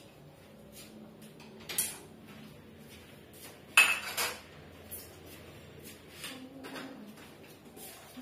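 Kitchenware being handled at a wire dish rack: scattered knocks and clinks as dishes are moved and lifted out, the loudest a sharp ringing clank about four seconds in.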